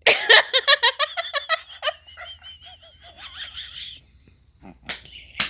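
High-pitched laughter, a quick run of ha-ha pulses that trails off into a thin, wavering wheeze. Two short, sharp sounds come near the end.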